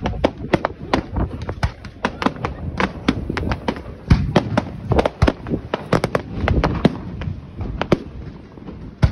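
Fireworks display: a rapid, irregular barrage of bursting fireworks, with many sharp bangs and crackles coming several a second.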